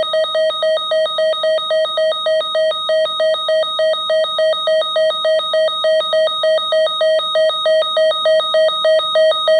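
Electronic alert tone from an emergency weather alert receiver, beeping about four times a second at a steady pitch. It is the alarm that signals an incoming weather warning.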